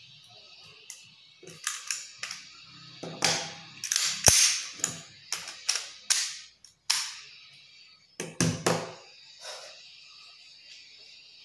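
A run of sharp metallic clicks and clacks as a Beretta 92-style pistol is handled: picked up, its action worked, and set back down on a wooden table. The clacks come irregularly, some in quick pairs, loudest about four seconds in.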